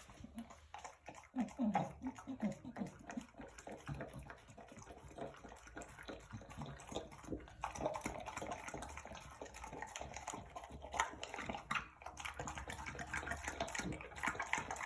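English bulldog eating a raw meal of beef lung and eggs: irregular wet chewing, smacking and slurping, getting busier about halfway through.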